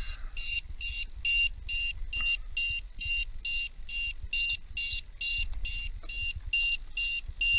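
Piezo LiPo low-voltage alarm beeping over and over, a short high-pitched beep about two and a half times a second. The alarm is set to sound at 3.6 V per cell, and it is warning that the flight battery's voltage is low.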